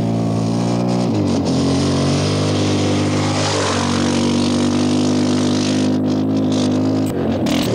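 A rally car's engine running hard, its pitch shifting about a second in, gliding around the middle, and changing again near the end.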